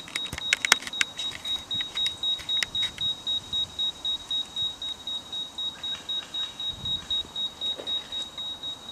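A high electronic beep repeating rapidly and evenly, about five times a second, with scattered sharp clicks in the first three seconds.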